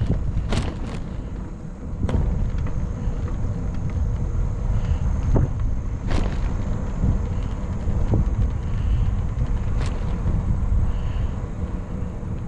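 Wind buffeting the microphone and road rumble from a touring bicycle being ridden, broken by several sharp knocks and rattles as it goes over bumps.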